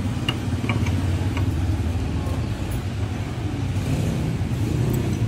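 A motor vehicle engine running steadily with a low hum, with a few light metal clicks in the first second and a half as a socket wrench is fitted onto a scooter's front brake caliper bolt.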